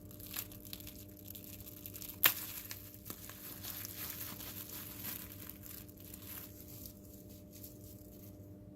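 Plastic packaging crinkling and rustling as a small circuit board is taken out of it, with scattered light clicks and one sharp click a little over two seconds in. The rustling stops shortly before the end.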